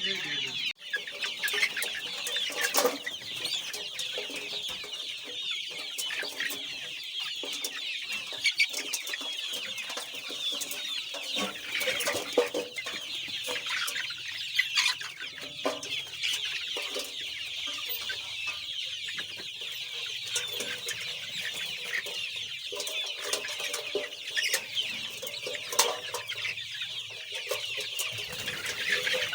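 A flock of Golden Misri chickens calling continuously, many high peeps and clucks overlapping, with scattered sharp taps.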